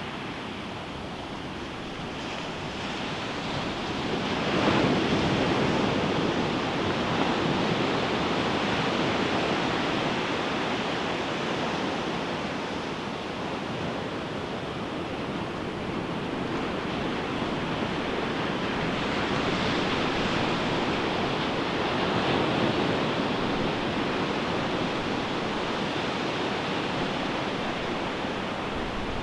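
Ocean waves breaking on a sandy beach, with the surf rushing and washing in a steady wash; a wave crashes about five seconds in, and another swell builds around twenty seconds in.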